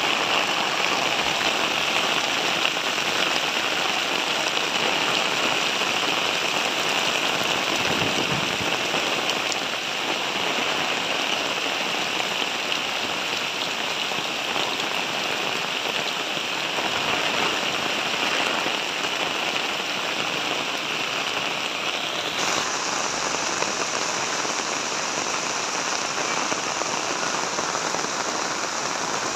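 Heavy rain falling steadily: a dense, even hiss of drops on the ground and on standing water. The hiss turns a little brighter about three-quarters of the way through.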